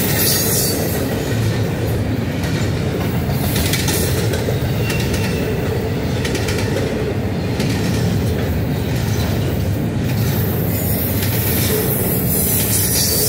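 Double-stack intermodal container train passing at close range: a steady rumble of steel wheels on rail with clickety-clack from the rail joints and a high hiss and wheel squeal that come and go.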